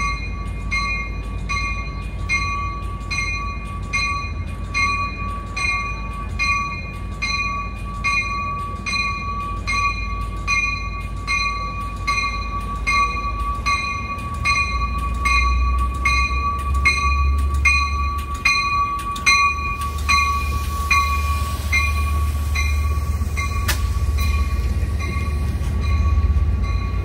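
A warning bell ringing steadily, about one and a half strokes a second, as an Amtrak California train pulls into the station. The train's low rumble swells from about halfway through as it draws alongside, and the bell stops a few seconds before the end.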